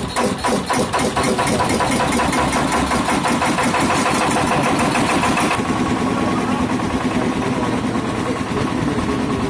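Engine that drives an air compressor, just started and picking up speed over the first few seconds, then running at a steady beat.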